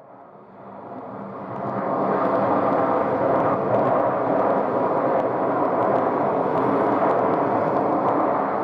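Jet aircraft engines roaring as a plane passes on the runway, building over the first two seconds and then holding loud and steady.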